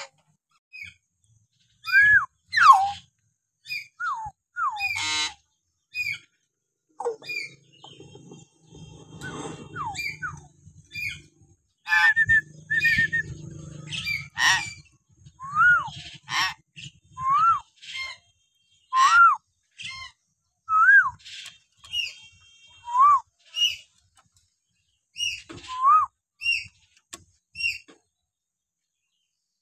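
Bornean hill myna calling in short separate bursts: loud whistles, sliding notes and harsh squawks. From about halfway on, a run of repeated arching whistles comes every second and a half to two seconds.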